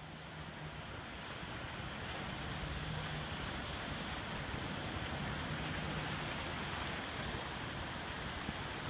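Ocean surf breaking and washing among shoreline rocks, a steady rush of water with some wind on the microphone. It swells up over the first couple of seconds, then holds.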